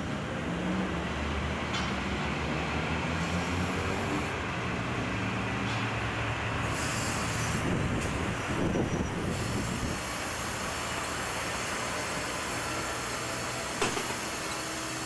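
Vintage Adelaide H-class electric tram running slowly along the track and pulling up at the platform, its wheels squealing on the rails in the second half. A single sharp click comes about a second before the end.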